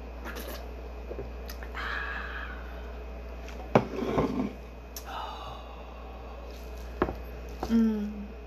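A woman drinking from a soda can, with short grunts and groans of disgust after eating a quail egg. Two sharp knocks come about four and seven seconds in.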